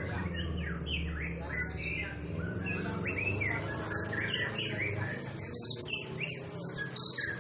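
White-rumped shama singing, a fast continuous run of varied whistles, chirps and high trills, over a low steady hum.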